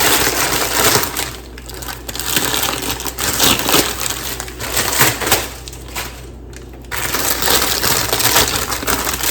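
Plastic bag of broccoli rustling and crinkling as the florets are shaken out and tumble into a pot, in spells with short pauses between.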